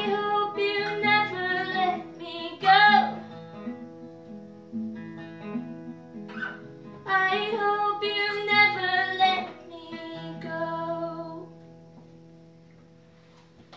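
A woman singing to her own acoustic guitar: two sung phrases over ringing chords, then the song's last chord rings on and fades away over the final couple of seconds.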